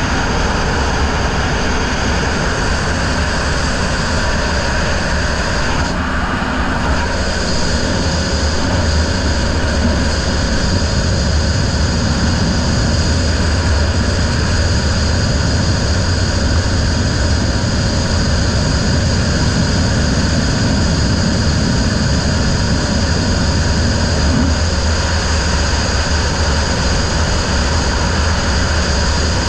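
Racing riverboat's outboard motor running steadily at speed, heard from aboard the boat with the rush of wind and water.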